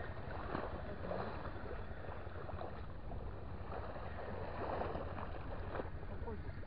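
A steady low rumble with faint voices in the background.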